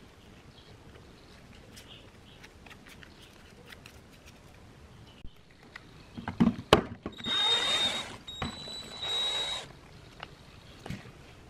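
Handheld electric drill running in two short bursts of about a second each, with a steady high whine. Before it come light clicks and knocks and one sharp knock.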